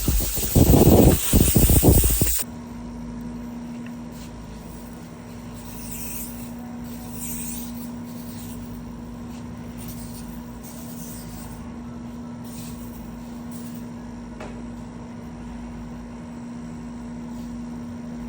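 Scuffing of a painted truck door with abrasive, loud rasping strokes for the first couple of seconds that cut off abruptly. After that, a steady low hum with a few faint hisses.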